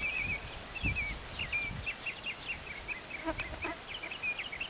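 Small birds chirping busily, a quick run of short high squeaky notes, several a second, that goes on throughout. A few dull low thuds in the first two seconds come from a horse's hooves on grass.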